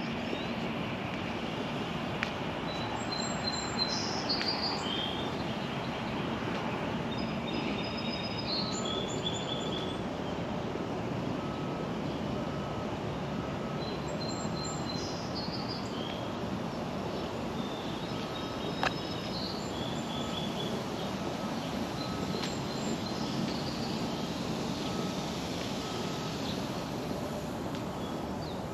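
Steady outdoor background noise with songbirds chirping again and again, and a faint short note repeating about once a second from several seconds in.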